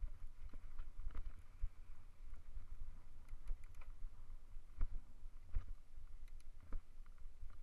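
Hardtail mountain bike rolling fast down a dirt road: irregular clicks and rattles from the bike as it jolts over bumps, over tyre noise on the dirt and a steady low wind rumble on the bike-mounted microphone.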